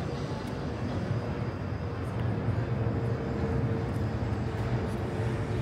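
Outdoor city ambience: a steady low rumble of traffic with voices in the background.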